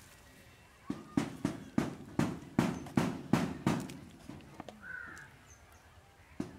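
Knife chopping on a cutting board: a run of about ten even strokes, roughly three a second, stopping for a pause near the end.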